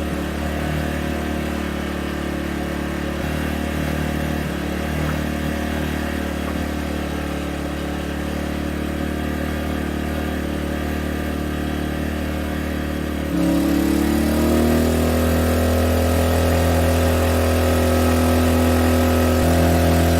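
Gentrax EC800i inverter generator's small engine running steadily. About 13 seconds in, it speeds up to a higher, louder note and holds it.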